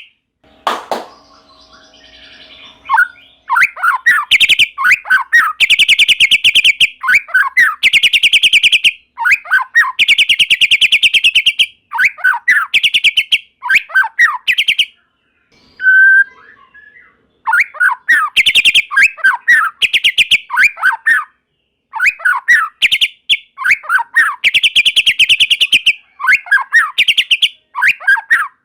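White-rumped shama singing: phrases of very fast rattling, repeated notes alternating with short falling whistles, broken by brief pauses.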